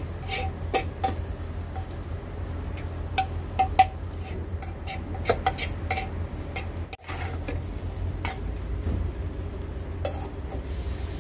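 Metal spoon stirring food in a frying pan, clinking and scraping against the pan again and again, over a steady low rumble.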